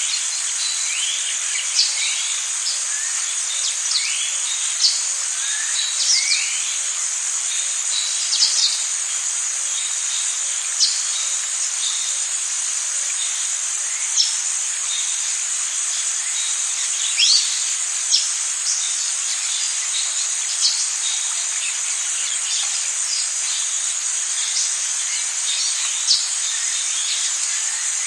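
Amazon rainforest ambience: a steady, high-pitched drone of insects with short bird calls every second or two over it, several of them quick rising chirps.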